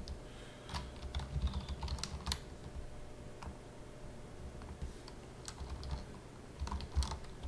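Computer keyboard keys being typed, a few separate, irregular keystrokes and clicks over a low steady hum.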